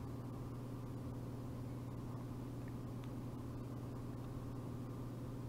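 Steady low hum with a faint hiss underneath: background room noise with no event in it.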